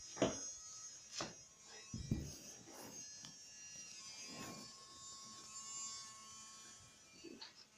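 Homemade mini drill with a small motor taken from an old toy, running with a steady high buzz while drilling a hole. A few knocks come from the work through it.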